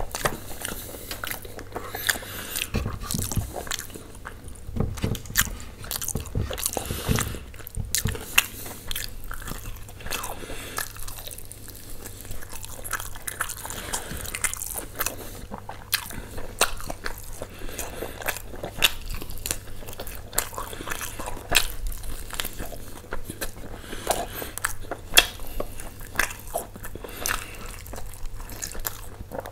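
Close-miked eating: a person chewing and biting into a meal of chicken and naan, with many irregular mouth and food clicks.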